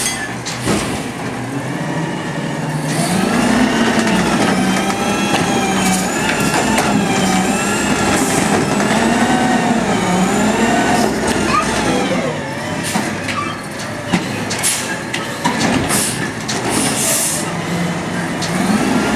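Peterbilt 320 automated side-loader garbage truck working its hydraulic arm: the engine and hydraulics run with a whine that wavers up and down in pitch as the arm moves a trash cart. In the second half come several sharp clanks and knocks as the cart is handled and set down.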